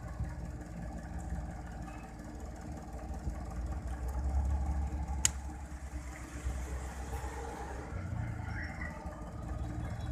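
Low rumble of engines from nearby traffic, with faint steady engine tones, heaviest around the middle. A single sharp click about five seconds in.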